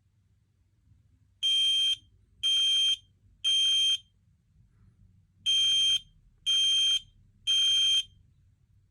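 Smoke alarm's piezo horn sounding on its test button: two rounds of three half-second beeps with a pause between, the temporal-three alarm pattern, on one steady high pitch.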